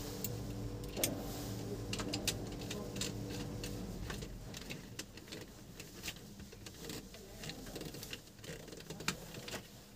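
Light clicks and scrapes of a small screwdriver and a copper wire being worked into the screw terminals of plastic modular switches. A steady low hum sits under it and fades about four seconds in.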